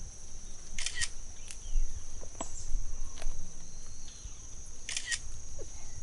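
Grass rustling twice in the hands as a clump of wild grass is gathered and braided, with a few light clicks, over a steady high insect drone.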